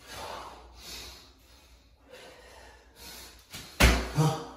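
A man breathing hard, with forceful exhales about once a second during push-ups. Near the end comes a sudden loud thump, followed by a short grunting breath as he gets up off the mat.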